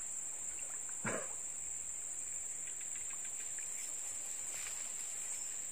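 Steady high-pitched buzzing of an insect chorus, with one short swish about a second in.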